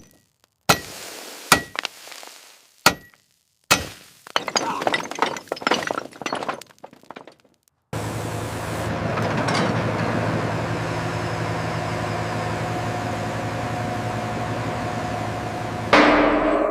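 Sharp metallic clinks and knocks, a few single strikes and then a rapid clatter. About eight seconds in, a steady machine noise with a low hum takes over.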